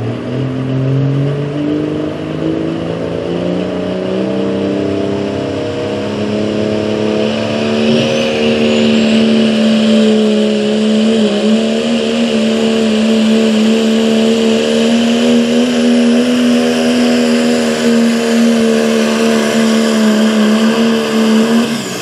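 Diesel pickup truck engine at full throttle, pulling a weight-transfer sled. The revs climb over the first several seconds, then hold high and steady through the pull. The engine drops off sharply at the end as the truck stops.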